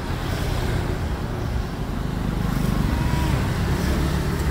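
Steady low rumble of street traffic and running engines.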